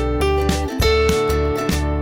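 Background music: a bright acoustic guitar track with regular plucked notes over a steady bass.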